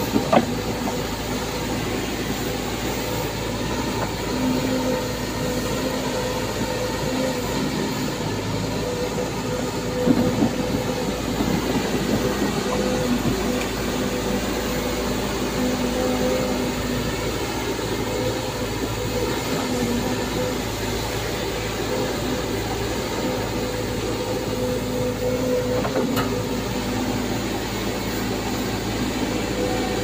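Volvo EC210D crawler excavator running: a steady diesel engine drone with a hydraulic whine, as the machine moves and swings on its steel tracks. There are a few sharp knocks, the loudest about ten seconds in.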